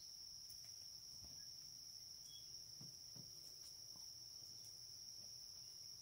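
Near silence with the faint, steady high-pitched drone of insects, with a few faint soft ticks.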